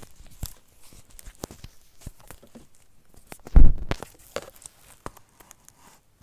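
Handling noise from fingers rubbing, tapping and knocking on the camera close to its microphone, with one loud thump about three and a half seconds in.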